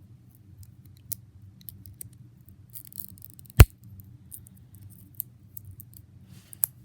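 Small plastic putty container being worked at to get it open: scattered light clicks of the plastic, one loud sharp click about halfway through and another near the end.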